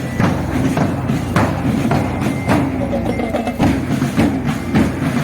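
School marching drum band playing: drums struck in a steady, regular beat, with pitched melody notes sounding over them.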